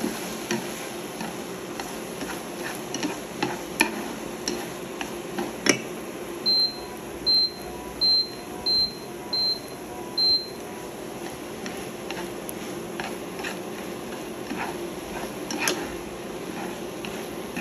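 Egg, tomato and onion sizzling gently in a nonstick frying pan while chopsticks stir, scrape and tap against the pan. About a third of the way in, six short high electronic beeps sound in a row, a little under a second apart.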